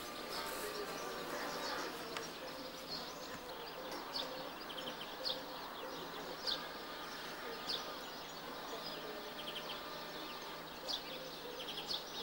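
Small birds chirping outdoors: short high calls and brief trills every second or so, over a steady background hiss.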